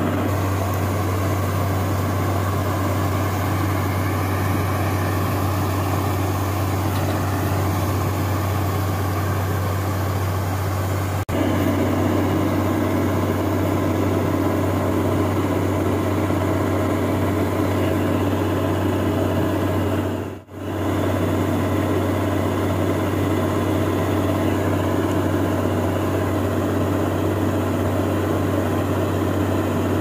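Sperry-New Holland 8070 combine harvester running steadily with a deep, even hum while its unloading auger pours threshed wheat grain. The sound breaks off for a moment about two-thirds of the way through.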